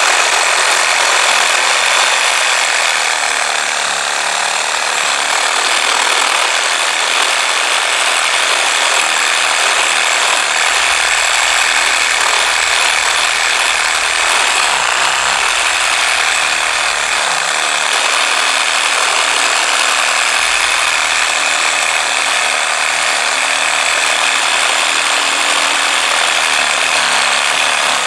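Hyper Tough 20V cordless reciprocating saw running steadily, its blade sawing through a tree limb.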